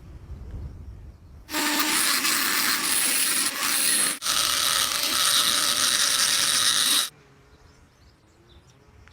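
A loud, steady mechanical noise lasting about five and a half seconds, with a brief break just after the middle, starting and stopping suddenly.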